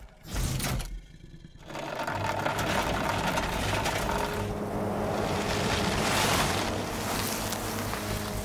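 Cartoon sound effect of a sail-driven cart setting off and speeding across sand: after a brief lull, a steady rushing whoosh with a low hum begins about two seconds in.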